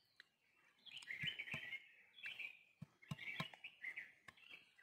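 Several sharp knocks of a knife blade striking a hard wild nut to crack its shell, which doesn't break. Birds chirp throughout.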